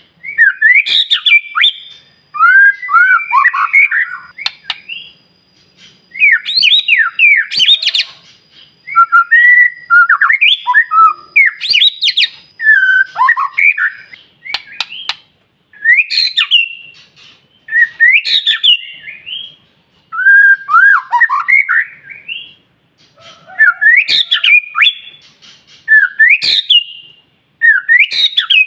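White-rumped shama (murai batu) in full song: loud, varied phrases of clear whistles, slurred up-and-down glides and sharp harsh notes, a new phrase about every two seconds with short pauses between.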